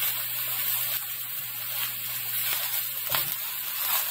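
Lemon halves sizzling cut side down in an oiled electric skillet, a steady hiss, with a brief knock about three seconds in.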